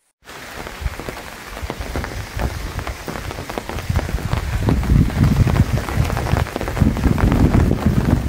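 Rain falling on leaves and foliage, with many individual drops ticking close to the microphone. A gusting low rumble builds about four seconds in and makes the sound louder.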